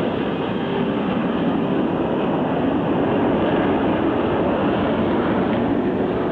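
Jet noise from Thunderbirds F-16 fighters flying overhead: a loud, steady rumble with no break.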